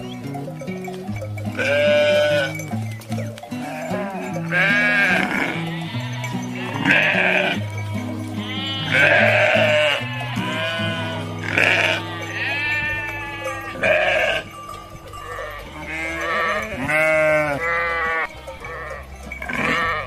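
Sheep in a flock bleating again and again, a call every second or two with some calls overlapping, over background music of held low notes.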